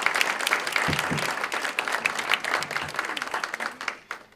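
Audience applauding, the clapping thinning out near the end before it cuts off abruptly.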